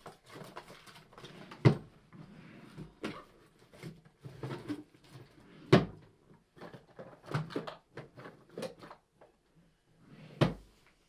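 Rummaging through a wooden bedside table drawer: small items shuffling and clattering, with three sharper knocks, about two seconds in, near six seconds and near the end.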